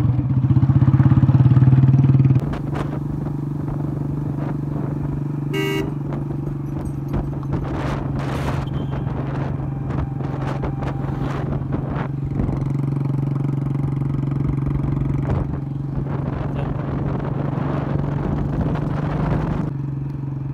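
Motorcycle with a modified aftermarket silencer running under way, heard from the pillion seat: loud for the first couple of seconds, then settling into a steady cruising note. A short horn beep about six seconds in.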